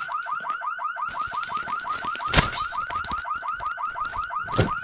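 Car alarm going off in a rapid chirping warble, about eight rising chirps a second, with a sharp knock about halfway through and another near the end.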